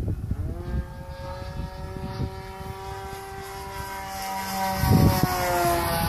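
Electric RC model Super Decathlon flying overhead: the whine of its D-Power 40-06 brushless motor and propeller, rising in pitch about half a second in, holding steady, then dropping in pitch near the end as it passes. Gusty wind rumbles on the microphone underneath, strongest about five seconds in.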